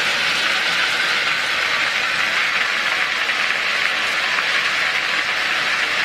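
Gravel pouring off the raised body of a dump truck: a steady rushing rattle of stones sliding out onto a pile.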